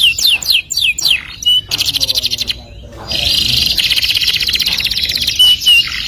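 Domestic canary singing: a run of quick down-slurred whistled notes, then a rapid trill, a short dip about two and a half seconds in, and from about three seconds on a long, fast rolling trill with a few short whistles near the end.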